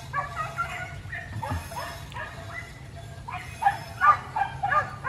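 Hunting dogs yelping rapidly in short, high-pitched yelps, with a louder, denser flurry about three and a half seconds in.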